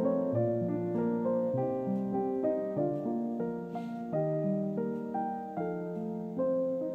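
Background piano music: a melody of single held notes moving from one to the next.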